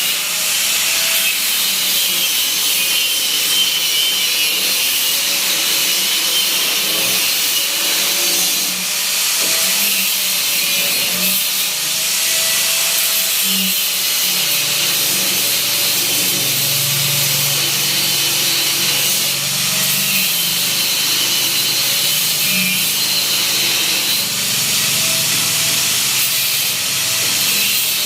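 Power tool running steadily under load, a continuous hiss with a motor tone that wavers slowly up and down.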